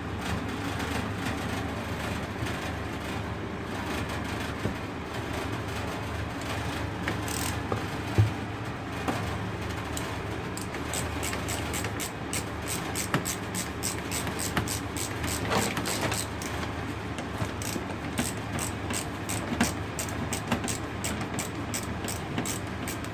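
RV furnace running: a steady blower hum with irregular rattling, tapping clicks that come thicker in the second half. The owner traced the noise to broken welds in the furnace.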